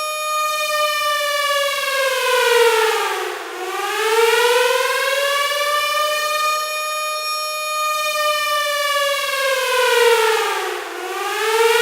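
Outdoor civil defense warning siren (air raid or tornado siren) sounding its wail, the signal to take shelter. A steady high tone that twice dips in pitch and climbs back, once about three and a half seconds in and again near the end.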